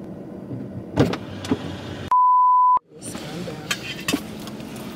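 A steady censor bleep, one pure tone near 1 kHz, lasting under a second about two seconds in, with all other sound cut out beneath it. Before it, two short knocks over the low hum of a car cabin.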